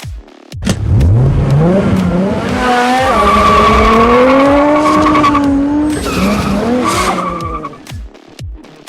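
Car engine revving hard, its pitch climbing quickly and holding high, with a tyre squeal through the middle; a second, shorter rev near the end.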